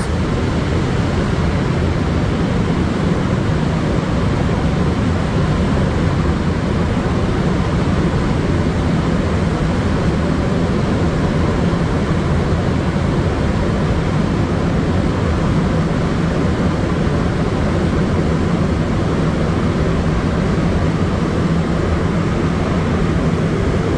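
Rubber-tyred Montréal Métro train running at a steady speed through a tunnel, heard from inside the car: a steady low rumble that does not rise or fall.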